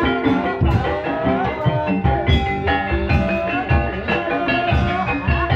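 Live Javanese gamelan music for an ebeg dance: steady drum strokes over ringing metal-keyed percussion, with a few sliding pitched notes above.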